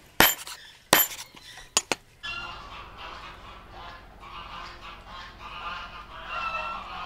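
Three sharp chops of a meat cleaver through raw chicken onto a wooden cutting board in the first two seconds, the loudest sounds here. Then a continuous din of domestic poultry calling.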